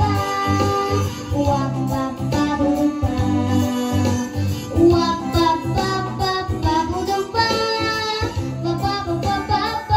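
A young girl singing a song into a microphone over instrumental backing music.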